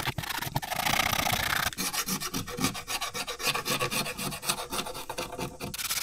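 Hand sanding with 60-grit sandpaper along a bare wooden oar strip, a steady rasping rub, stripping old glue and roughening the wood so epoxy can key in. From about two seconds in until near the end it turns into a rapid chattering scrape as a blade scraper is drawn along the wood.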